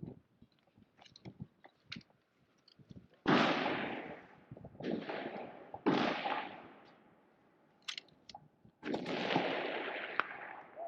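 Precision rifle shots: four shots about one to three seconds apart, each ringing out in a long decaying echo, with light clicks of handling between them.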